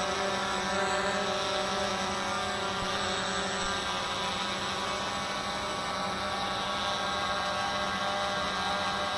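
Walkera QR X350 PRO quadcopter's electric motors and carbon-fibre propellers humming steadily in flight, a many-toned whine that holds its pitch.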